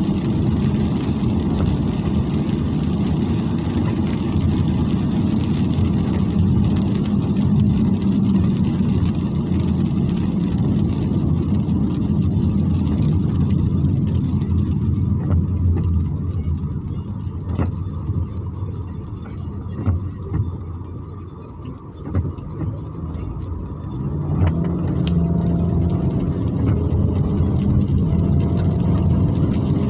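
Inside a car driving on a wet road at night: steady road and tyre noise with the engine underneath. It drops off from about halfway as the car slows and stops in traffic. Near the end the engine note rises as the car pulls away.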